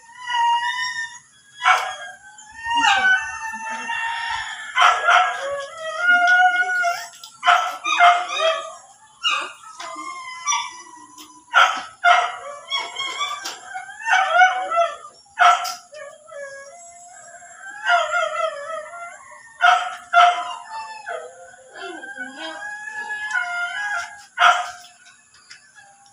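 Long, wavering, high-pitched animal calls, whining and howling, again and again, with sharp short yelps or knocks breaking in every second or two.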